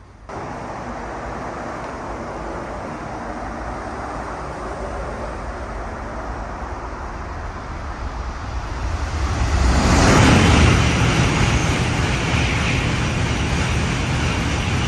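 Shinkansen bullet train passing through the station at high speed: a rush of air and wheel noise that swells over a few seconds, is loudest about ten seconds in, and stays loud as the cars sweep past.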